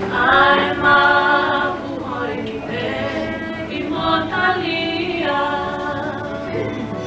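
Several women's voices singing a slow song together, holding long notes, loudest in the first couple of seconds.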